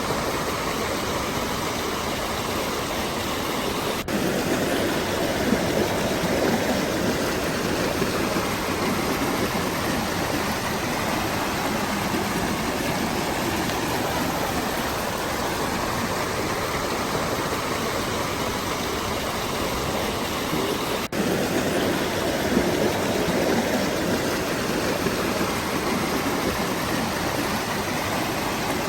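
Waterfall and mountain stream water rushing steadily. The rush breaks off for an instant twice, about four seconds in and about twenty-one seconds in, and comes back a little louder each time.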